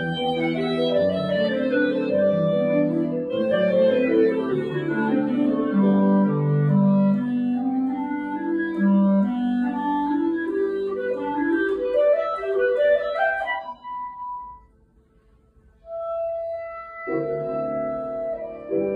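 Clarinet playing a classical piece with grand piano accompaniment. About thirteen seconds in, a quick rising run ends on a short high note, then comes a pause of a second and a half; the clarinet comes back in on a held note and the piano joins again about a second later.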